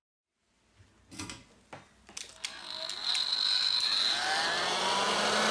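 A few sharp clicks and knocks, then a heat gun switches on about three seconds in and blows steadily onto a phone's glass back, with a brief rising whine as its fan gets going.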